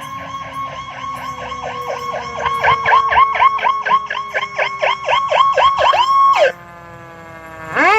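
Fire truck siren on a fast yelp, about five sweeps a second, growing louder about two and a half seconds in, with a second, lower siren tone slowly winding down beneath it. The yelp cuts off suddenly about six and a half seconds in, and a siren wail starts rising near the end.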